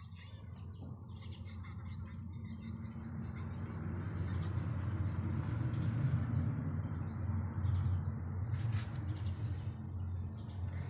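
A low rumble that swells to a peak past the middle and then eases off, with faint bird chirps over it.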